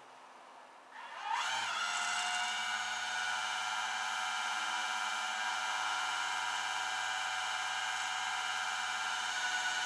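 A motor spinning up with a rising whine about a second in, then running at a steady high-pitched whine.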